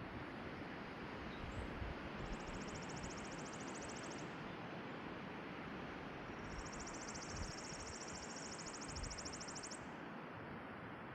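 Strong steady wind rushing and buffeting the microphone with low gusty rumbles. Twice a high, rapid trill comes through, once for about two seconds and again for about three seconds.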